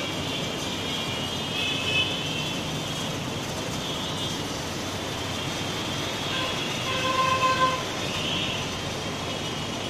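Steady noise of a congested city street, with vehicles running in slow traffic. High-pitched tones come and go throughout, and a vehicle horn sounds for under a second about seven seconds in.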